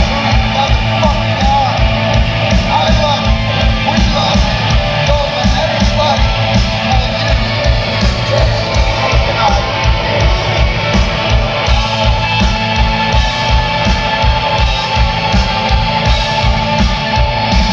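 Live rock band playing loud: electric guitars, bass and drums keeping a steady beat, with a singer's vocals over the top.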